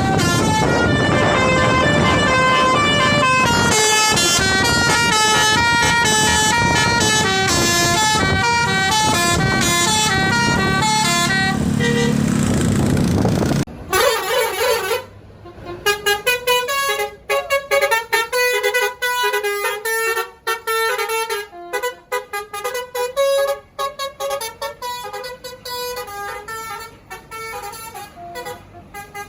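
An Indonesian bus's multi-tone 'telolet' musical air horn playing a long melody of quickly changing notes over road noise. About halfway it drops suddenly to a quieter, choppier run of notes.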